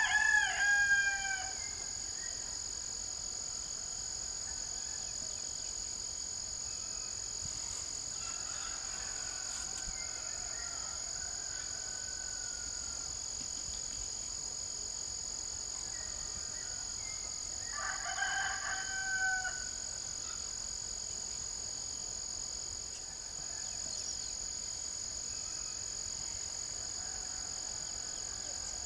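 A rooster crowing: one call right at the start and another about 18 seconds in, each lasting about a second and a half, with a fainter, more distant crow between them. Under it runs a steady high-pitched drone of insects.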